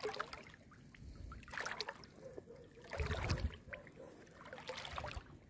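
Wading steps through shallow seawater: about four splashing, sloshing steps, roughly one every second and a half.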